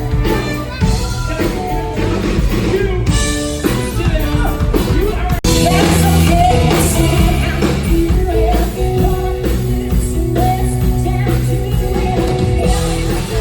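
Loud rock music with a singer.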